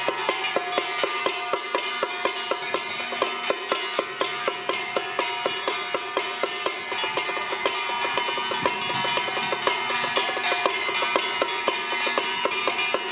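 Traditional temple-troupe percussion: drum and cymbals beating a steady, fast rhythm of about four strokes a second, with steady ringing tones held underneath.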